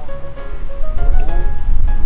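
Background music with held notes over a heavy low end.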